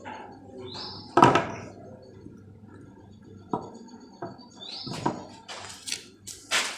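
Knocks and clatter of plumbing pipes, fittings and tools being handled and set down, with the loudest knock about a second in and more around the end, and two short rising squeaks just before the first two knocks.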